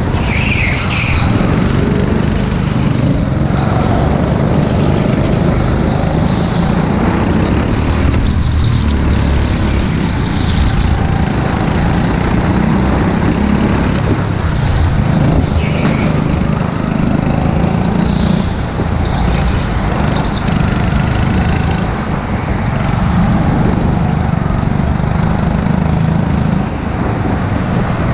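Onboard sound of a rental go-kart's small engine running hard at racing speed, steady apart from brief dips about 18, 22 and 27 seconds in.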